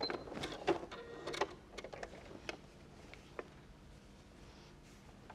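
Scattered light clicks and rustles of fabric and sewing-machine parts being handled as the stitched piece is taken out from under the needle, mostly in the first couple of seconds, then faint room tone.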